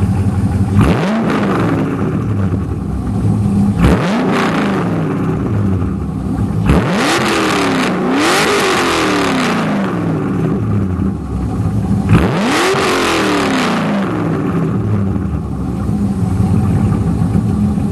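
Chevrolet C5 Corvette V8 through an aftermarket exhaust, idling with a deep burble and revved in five quick throttle blips, two of them back to back in the middle; each rev climbs sharply in pitch and falls back to idle.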